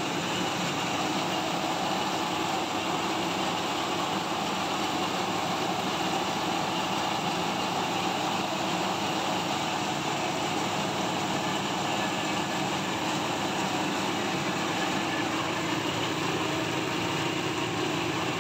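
Belt-driven rice milling machine running steadily, a constant mechanical drone with a dense rushing noise over it, as it strips the chaff from the rice.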